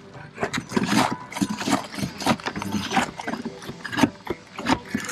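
A run of irregular knocks and clacks, several a second, like hard objects striking one another.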